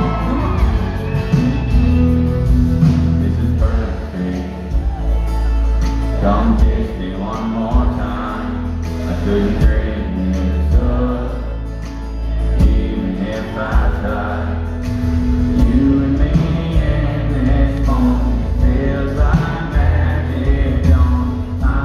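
Live amplified band playing a slow country ballad, with electric guitars, keyboards, bass and drums under a male lead vocal.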